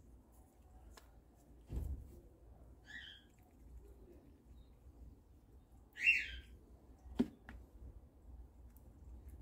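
A bird calls twice: a short call about three seconds in and a louder one about six seconds in. There is a dull knock near two seconds and a sharp click a little after seven seconds.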